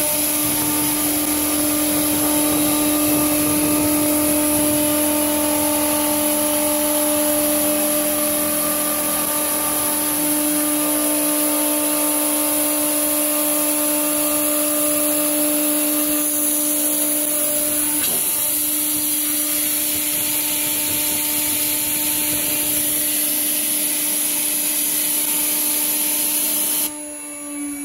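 Spindle of an EagleTec ET-1500HW CNC wood router whining steadily as a long end mill cuts a curve through 90 mm thick solid wood, with the rough noise of the cut under the whine. Near the end it suddenly gets quieter and the whine sinks slightly in pitch.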